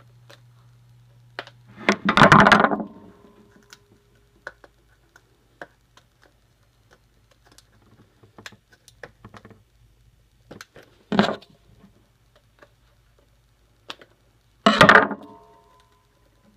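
Plastic shrink-wrap being torn and crumpled off a Blu-ray steelbook case: three loud crinkling bursts, about two seconds in, around eleven seconds and near the end, with small clicks and taps of the case being handled between them.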